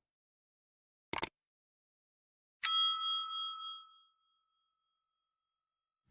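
A quick double click, then about a second and a half later a single bright, bell-like ding that rings out and fades over about a second and a half, with dead silence around both.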